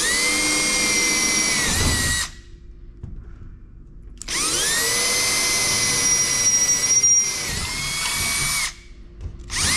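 Cordless drill with a 10 mm bit drilling mounting holes, running in bursts: about two seconds, a pause, then about four seconds, and a third run starting near the end. Each run spins up with a rising whine, then holds a steady high whine.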